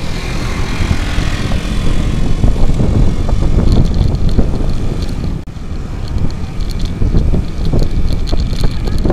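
Heavy wind buffeting the microphone of a bicycle-mounted camera while riding along a road, with a truck passing close alongside in the first couple of seconds.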